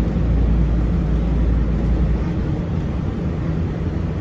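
Mercedes-Benz OC500LE city bus heard from inside while under way: a steady low engine and road rumble that eases slightly about two seconds in.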